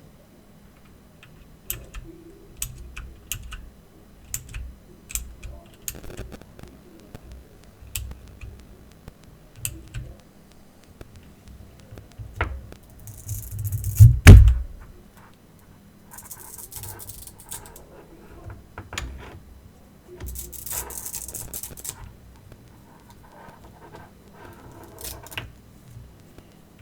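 An Aukey mechanical keyboard and its packaging being handled: scattered clicks and taps, one heavy thump about fourteen seconds in, and a few short bursts of rustling.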